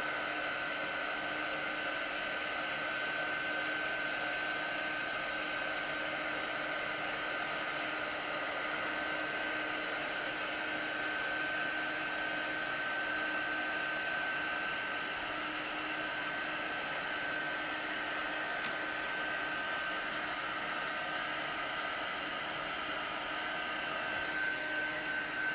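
Craft embossing heat gun running steadily, a blowing whir with a steady high whine, as it melts white embossing powder on vellum.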